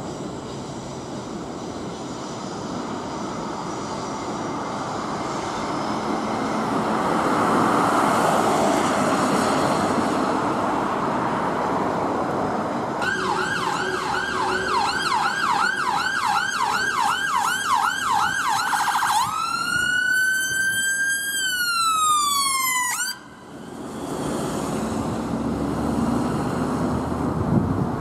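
Traffic noise at first, then an ambulance siren starts about halfway through with a fast yelp sweeping up and down about four times a second. It switches to a slow wail that rises and then falls, and cuts off suddenly, leaving road traffic noise.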